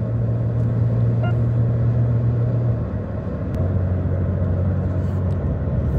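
Car cabin at highway speed, about 105 km/h: a steady low drone of engine and tyre noise. The hum drops slightly in pitch just before halfway through.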